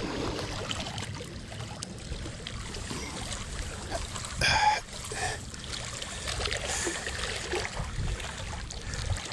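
Wind on the microphone and small waves lapping against a concrete bank, with one brief sharp sound about four and a half seconds in.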